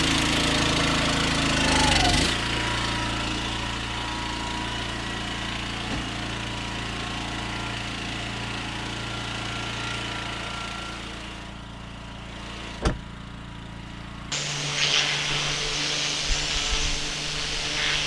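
Pressure washer engine running steadily, with the sound changing abruptly a few times.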